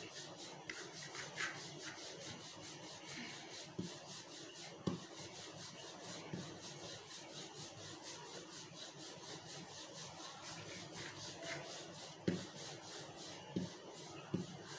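Wooden rolling pin rolling paratha dough back and forth on a floured board, a soft steady rubbing, with a few light knocks along the way.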